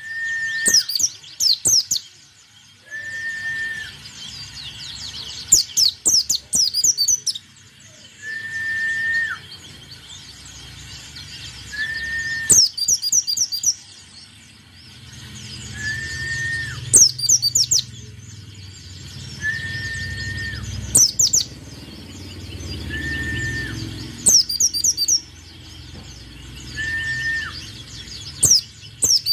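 A white-eye (pleci) singing in full song: short bursts of rapid, very high twittering about every three seconds. Between them a separate clear whistled note, held briefly and dropping at its end, repeats every two to three seconds.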